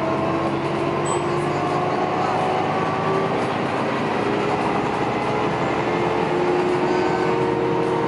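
Articulated city bus heard from inside the cabin while driving: steady engine, drivetrain and road noise, with a whine that rises slowly as the bus gathers speed.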